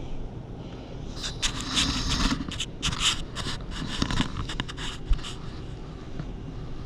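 Raccoons rummaging at plastic food plates on a tablecloth: a run of scratchy scraping and rustling with quick clicks from about a second in until about five seconds, ending with one sharp knock.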